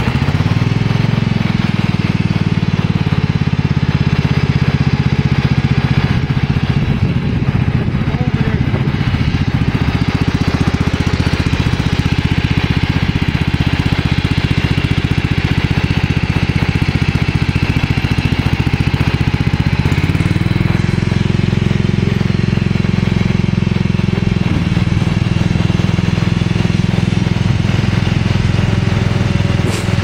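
The 16 hp engine of an MTD Yardman lawn tractor running steadily under load, driving its 42-inch two-stage snow blower through snow. Its note changes and rises slightly about two-thirds of the way through.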